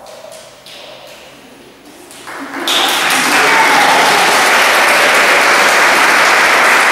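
Audience applause breaking out about two and a half seconds in after a quiet stretch, then holding steady and loud.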